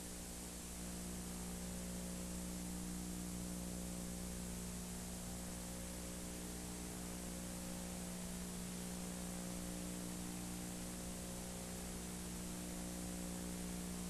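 Steady hiss with a low electrical hum, the background noise of an old analog recording with no programme sound; the hum gets slightly louder about a second in.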